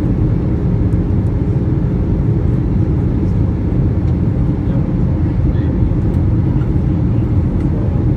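Steady low rumble of jet engine and airflow noise inside the cabin of an Airbus A321 airliner in flight.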